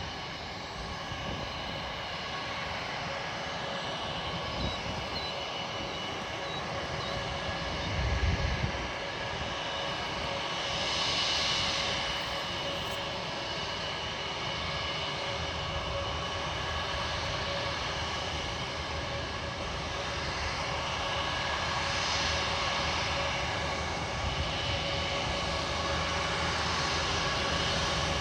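Jet airliner engines running with a steady whine over broad engine noise, swelling now and then. A brief low thump comes about eight seconds in.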